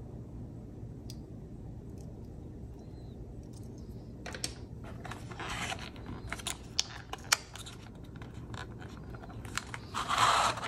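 Handling noise of small plastic camera-mount parts and a packaging insert tray being pulled from a carry case: clicks, taps and scraping that start about four seconds in, with a louder scraping rustle near the end.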